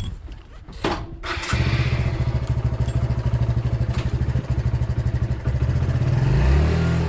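Motorcycle engine starting after a couple of clicks, catching about a second and a half in and idling steadily, then revving up briefly near the end.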